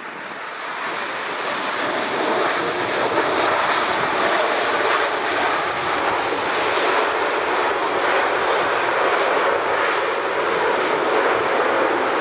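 Jet airliner engines passing close. The noise builds over the first few seconds, then holds loud and steady.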